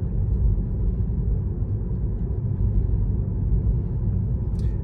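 Steady low road and tyre rumble heard inside the cabin of a Tesla electric car cruising at about 25 mph, with no engine note.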